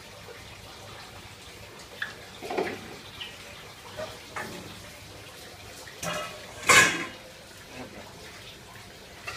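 A few scattered sharp knocks and clatters of kitchenware, a cleaver and dishes on a wooden chopping block, over low steady background noise. The loudest is a single hard strike about two-thirds of the way through.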